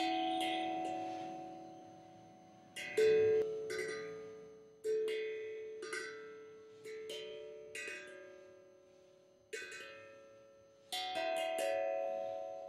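Background music: single notes plucked on a string instrument, one every second or two, each left to ring and fade slowly.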